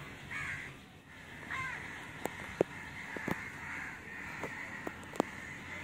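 Crows cawing repeatedly in the background, with a few sharp clicks.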